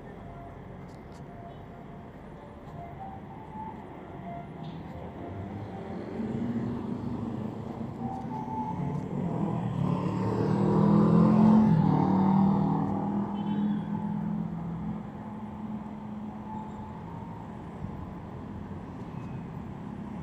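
City road traffic: a steady hum of passing cars, with one vehicle's engine passing close by, rising to the loudest point about halfway through and then fading away.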